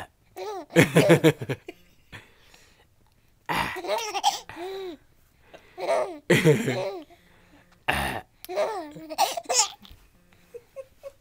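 A baby giggling and laughing in about five separate bursts. Short, sudden burping sounds come between the bursts and set her off.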